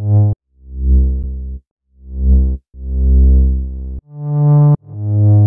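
Zebralette 3 software synthesizer patch played as a run of about six separate low notes. Each note swells in with a slow fade-in attack and then stops.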